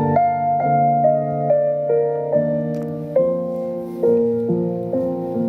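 Slow, gentle piano introduction to a song, a new note or chord about every half second.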